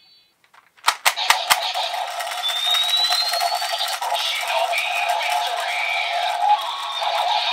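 Kamen Rider Tycoon's Desire Driver toy belt with the Ninja Raise Buckle: three or four sharp clicks as the buckle's shuriken is worked, then the toy's electronic finisher sound effects with a rising whistle-like tone, and an electronic voice calling "Shinobi Victory" near the end.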